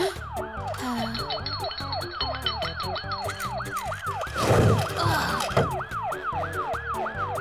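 Cartoon ambulance siren wailing fast, about three rise-and-fall cycles a second, over background music with a steady beat. About four and a half seconds in, a short loud burst of noise cuts across it.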